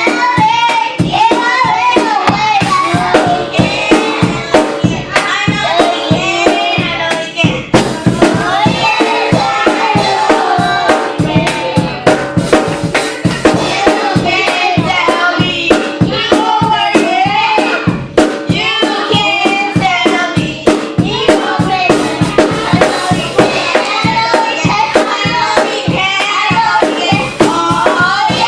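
Children's choir singing, with rhythmic handclaps and drums beating steadily under the voices.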